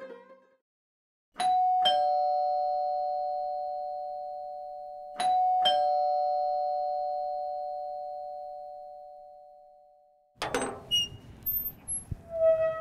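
Two-tone doorbell chime, a higher then a lower note, rung twice about four seconds apart, the second ring dying away slowly. Near the end there is outdoor noise with a few sharp knocks and clicks.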